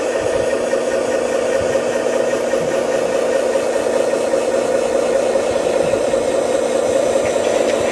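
Radio-controlled model construction machine running steadily, a constant mechanical whine and hum that holds level throughout.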